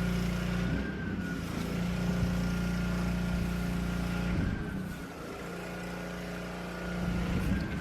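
A steady motor hum with a thin, slightly wavering whine above it, dipping in level for a couple of seconds midway.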